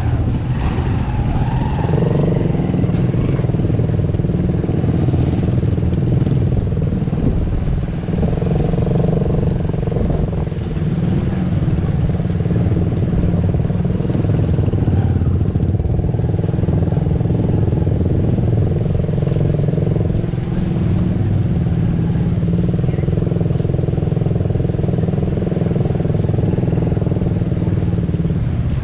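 A motor vehicle running, a steady low rumble with no clear change in speed.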